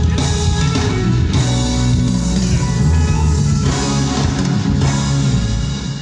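Live band playing loud music at a sound check, with drums and guitar; the music drops away near the end.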